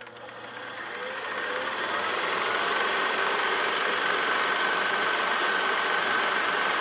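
Film projector sound effect: a rapid, steady mechanical clatter with hiss and a thin whine, fading up over the first two seconds and then running evenly.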